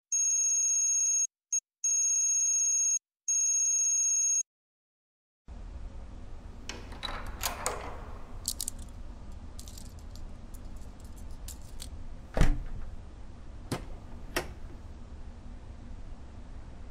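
An electronic ringing tone, like a telephone, sounding in three bursts with a short blip between the first two, then cutting off. After about a second of silence comes a low room hum with a few scattered knocks and clicks, the loudest a single thump about twelve seconds in.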